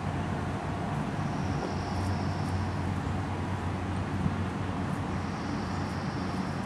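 Steady outdoor background noise: a low hum and rumble, with a faint high hiss that swells twice.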